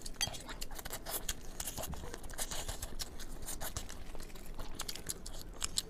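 Plastic-gloved hands tearing apart a large saucy braised head: wet tearing and a run of small irregular crackles and clicks as meat and bones separate.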